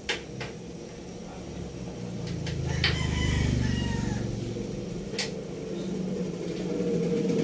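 A rooster crowing once, about three seconds in, over a low rumble that swells and fades, with a few sharp clicks. A pot of pork broth is at a rolling boil.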